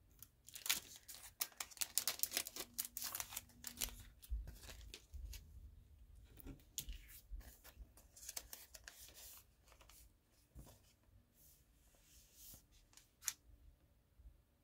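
A grey plastic blind-pack wrapper being torn open and crinkled by hand, and a glossy photo card slid out of it. Dense crackling over the first few seconds, another run in the middle, then scattered rustles and one sharp snap near the end.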